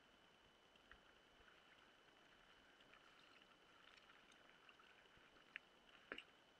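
Near silence: a faint steady high whine, with a couple of faint short clicks near the end.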